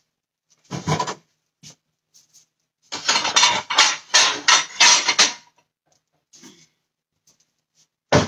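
Kitchen handling sounds: dishes and utensils knocking and scraping. A short clatter comes about a second in, then a couple of seconds of rapid scraping strokes, and a single sharp knock near the end.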